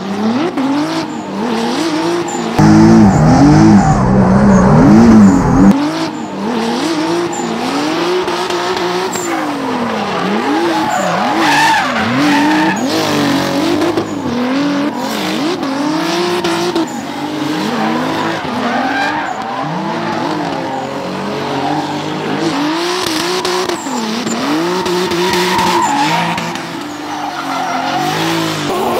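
Twin-turbocharged 3.8-litre V6 of an Infiniti G35 coupe drift car (Genesis Coupe engine swap) revving up and down again and again while drifting, with tyres squealing and skidding. About two and a half seconds in, a louder low rumble lasts about three seconds.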